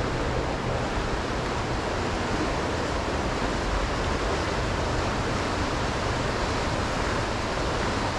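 Shallow river running fast over a gravel bed, a steady rushing of water.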